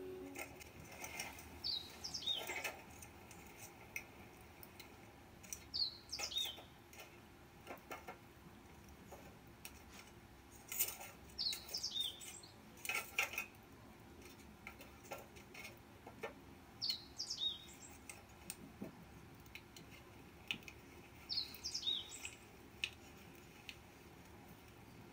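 A bird calling over and over, about every four to six seconds: a short, high, two-note call that sweeps downward each time. Light clicks and clinks come in between, a few of them as loud as the calls.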